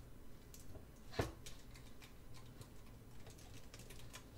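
Faint clicks and taps of a plastic Transformers Masterpiece Blackarachnia figure being handled and fitted onto a plastic web display stand, with one sharper click about a second in.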